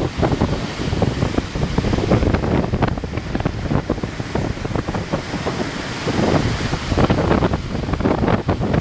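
Hurricane wind gusting hard and buffeting the microphone in loud, uneven rushes.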